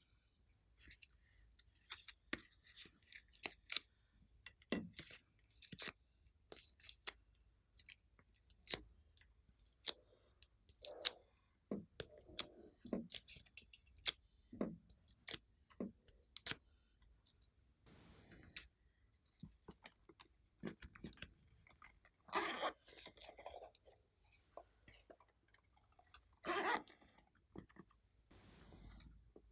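Clear slime being worked and mixed, giving irregular sticky clicks and pops, with a couple of longer squishes toward the end.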